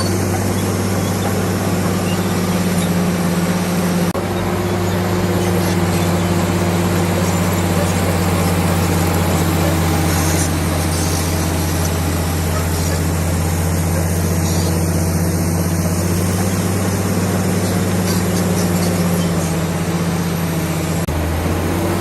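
Komatsu D65PX bulldozer's diesel engine running steadily with a deep, even drone, shifting slightly in pitch near the end.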